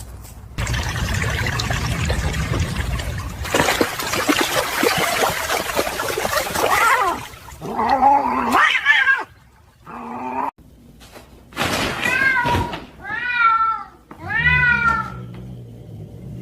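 A stretch of steady hissing noise, then a domestic cat meowing about five times in the second half, each call rising and falling in pitch.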